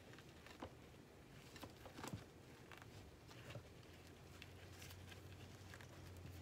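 Faint, scattered ticks and rustles of potting soil being pressed and crumbled by gloved hands around succulents in a pot. A faint low hum comes in about four seconds in.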